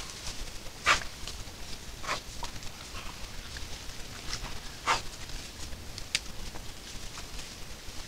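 White-lipped peccaries walking and rooting through dry leaf litter: irregular rustling and crackling, with two louder, sharper crunches about a second in and about five seconds in.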